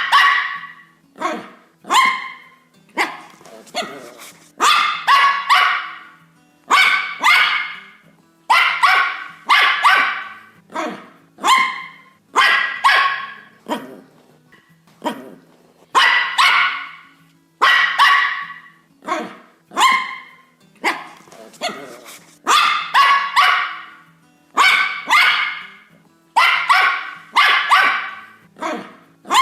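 A dog barking over and over, in single barks and quick runs of two or three, each bark trailing off briefly.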